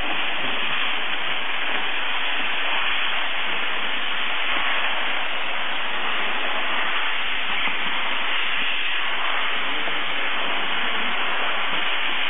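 Steady, even hiss of a jet of dry steam blowing from the nozzle of a dry steam cleaner's lance.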